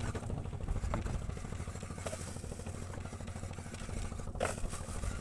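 Small fishing boat's engine running steadily with a low throb, with a few brief clicks or knocks over it, the loudest about four seconds in.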